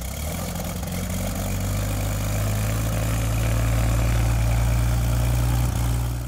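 A Cessna 182's freshly rebuilt six-cylinder piston engine and propeller idling steadily moments after starting, heard from outside the airplane.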